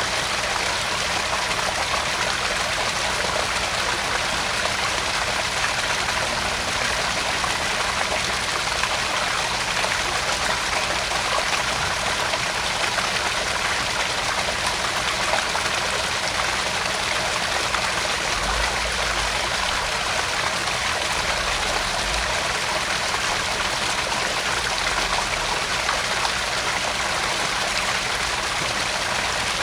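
Small garden pond waterfall: water splashing and trickling steadily into the pond.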